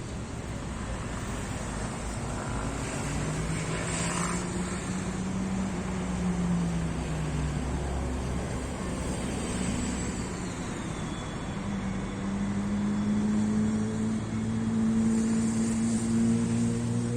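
Engines running against a steady outdoor rumble, their pitch rising and falling twice.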